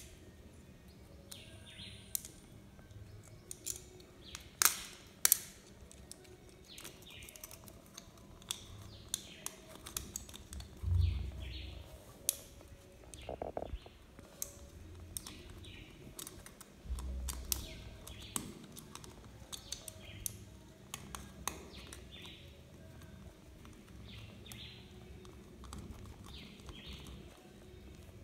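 Scattered sharp clicks and taps from hands handling a wall socket outlet and its fittings, with a couple of dull bumps, while birds chirp in the background throughout.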